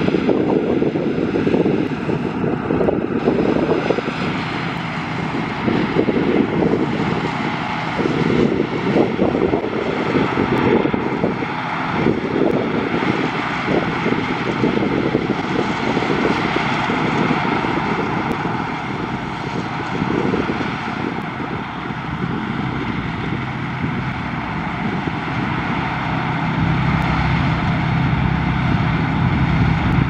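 Claas Dominator 208 combine harvester working under load in sunflowers: a steady drone of diesel engine and threshing machinery that rises and falls a little. A deeper steady hum grows stronger in the last few seconds.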